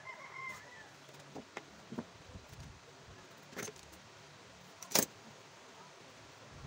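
A short high squeak at the start, then a few sharp clicks and taps as tools and rubber sole pieces are handled and set down on a workbench; the loudest tap comes about five seconds in.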